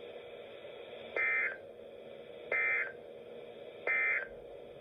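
Three short bursts of Emergency Alert System digital data tones, the warbling two-tone code of an end-of-message (NNNN) signal that closes a weather radio test broadcast. Each burst lasts about a third of a second, and they come about 1.3 seconds apart over a faint steady hum.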